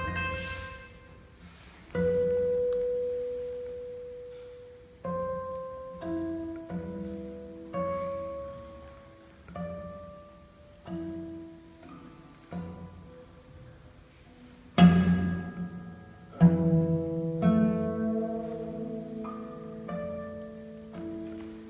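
Solo classical guitar played fingerstyle: a slow piece of single plucked notes and chords, each left to ring and die away, with two loud chords about two-thirds of the way through.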